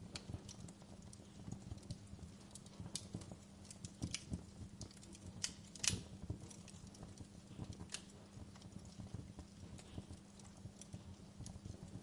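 Wood fire crackling with small irregular pops, one louder pop about six seconds in, over a steady low hum.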